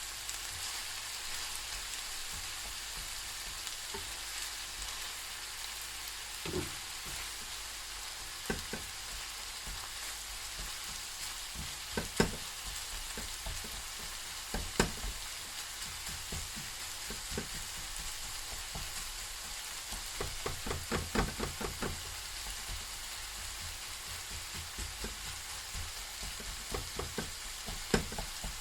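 Beef frying in a pan with a steady sizzle, while a utensil stirs it, knocking against the pan now and then, with a quick run of knocks about two-thirds of the way through.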